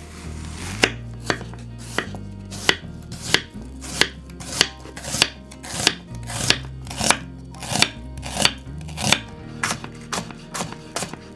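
Kitchen knife slicing a peeled onion on a wooden cutting board: regular chops, each slice ending in a knock of the blade on the board, about one and a half a second. Near the end the strokes turn quicker and lighter.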